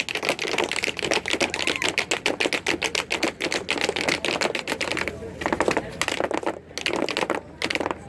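Audience applauding: dense, irregular clapping that thins out to a few scattered claps over the last few seconds.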